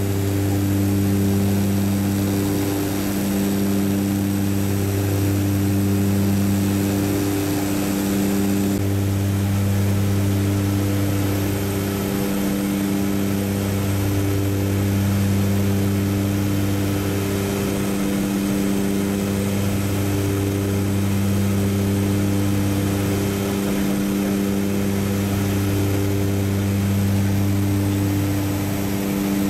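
Light aircraft's engine and propeller droning steadily, heard inside the cabin in cruise, with a slow rise and fall in the drone every few seconds.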